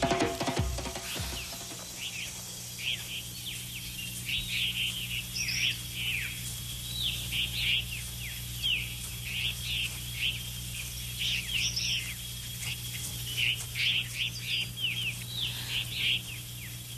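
Birds chirping: many short, high chirps that sweep in pitch and repeat irregularly throughout, over a steady low hum.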